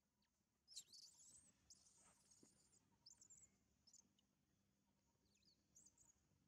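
Faint, high-pitched animal chirps and squeaks in several short runs, the loudest about a second in, over near silence.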